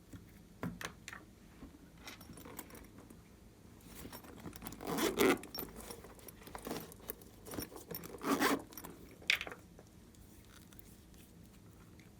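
Close-up handling of small objects: light clicks and scrapes, with two louder rasping scrapes about five and eight and a half seconds in, and a sharp click just after the second.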